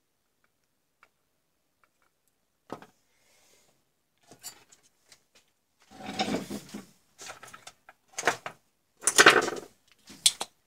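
Handling noise on a workbench: a single knock, then a run of irregular knocks and scrapes as a power-supply circuit board and a soldering iron are set down and moved about. The loudest knock comes about nine seconds in.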